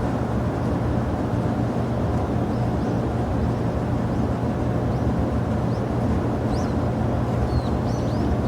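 Steady rumble of jet aircraft engines at the airport, with a constant low hum and a few faint short high chirps in the second half.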